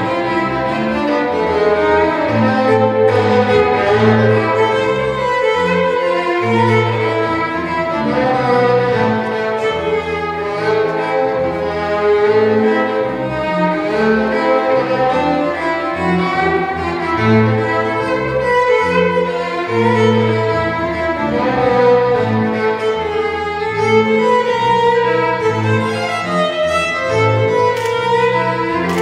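Violin and bowed double bass playing Irish fiddle tunes as a duo: the violin carries a quick-moving melody over sustained low bass notes.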